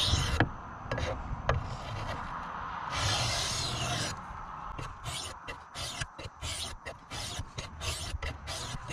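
Knife blade scraping on a fine wet sharpening stone: a couple of clicks and a longer single stroke first, then quick back-and-forth strokes, about four a second, from about five seconds in.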